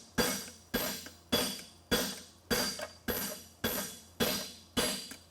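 Steady, evenly paced hammer blows on a flatter set on a steel horseshoe at the anvil, about one every 0.6 s, each ringing metallically. The flatter is dressing and crisping the shoe's inside edge.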